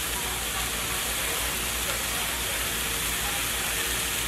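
Riced cauliflower sizzling steadily in a hot frying pan, with a low steady hum underneath.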